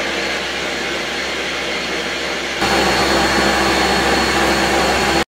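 Countertop blender running, pureeing peppers into green sofrito: a steady motor noise that gets louder about two and a half seconds in and cuts off suddenly at the end.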